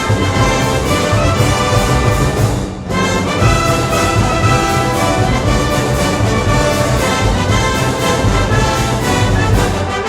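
Brass band playing Moros y Cristianos festival music, with a steady beat and a brief break about three seconds in.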